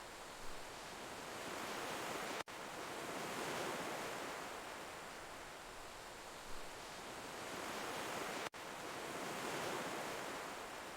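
Ocean waves washing ashore, swelling and easing over several seconds at a time. The sound cuts out for an instant twice, about two and a half seconds in and again near eight and a half seconds.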